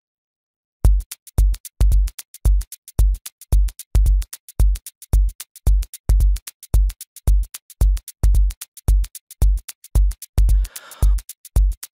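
Electronic background music that starts about a second in: a drum-machine beat with a deep kick about twice a second and crisp hi-hat ticks, and a swooshing synth sweep near the end.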